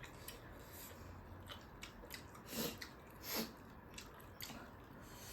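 Faint close-up mouth sounds of eating chicken wings: small clicks and smacks of chewing, with two short huffs of breath through the nose about two and a half and three and a half seconds in.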